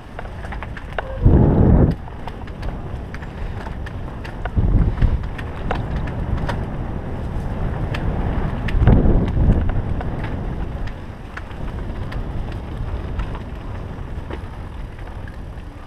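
Mountain bike ridden fast down a leaf-covered dirt trail: tyres rolling over leaves and dirt and the bike rattling, with scattered sharp clicks over bumps and wind rushing on the microphone. Three louder rushes of noise come about 1.5, 5 and 9 seconds in.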